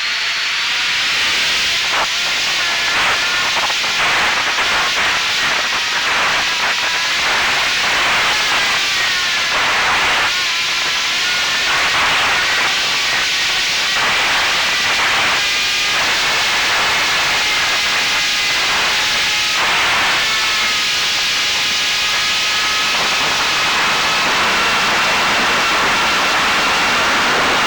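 Brushless electric motor and propeller of a ZOHD Drift FPV plane in flight, heard through the onboard camera's microphone: loud wind rush with a whine that drifts up and down in pitch as the throttle changes, rising higher near the end.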